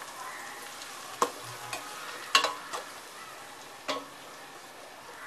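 Chopped onion and tomato sizzling in hot oil in a pot while a metal spoon stirs them, the spoon knocking against the pot about four times.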